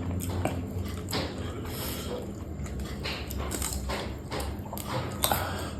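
A person chewing food, with irregular wet smacking and crunching mouth sounds.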